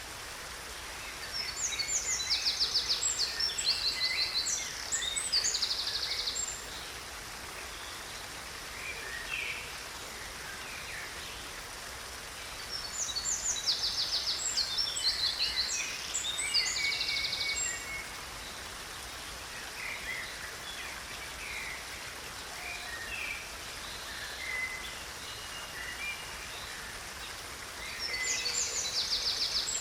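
A stream running steadily with songbirds singing over it. Bursts of quick, high, rattling song phrases come for several seconds twice and again near the end, with scattered single chirps between.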